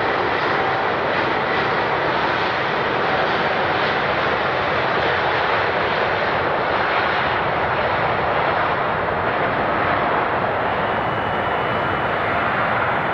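Airbus A350's Rolls-Royce Trent XWB turbofan jet engines running loud and steady: a dense rushing noise with faint high whining tones in it.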